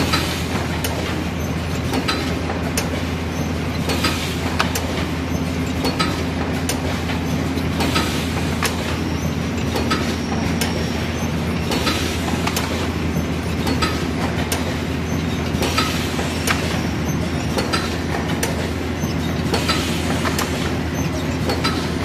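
Automatic sparkler carton-packing machine running: a steady motor hum with a pair of sharp clacks about every two seconds as it cycles.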